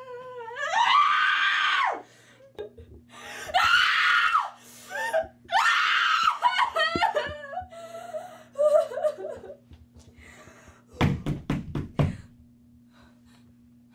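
A girl's acted screams of fear: three loud, high-pitched screams, each a second or so long, in the first seven seconds, then softer whimpering cries. Near the end comes a quick run of about six sharp knocks, over a steady low hum.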